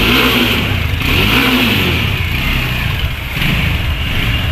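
Motorcycle engine running and revving on the road, with the pitch rising and falling in the first second or two over steady road noise.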